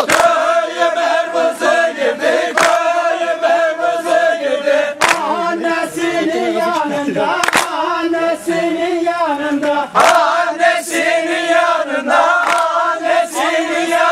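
A group of men singing a folk song together in unison, with a sharp beat about every two and a half seconds.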